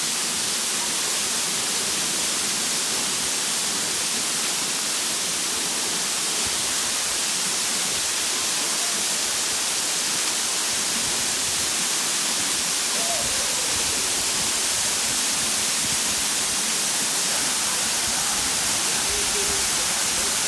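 A waterfall pouring into a shallow pool: a steady rushing hiss that stays level throughout.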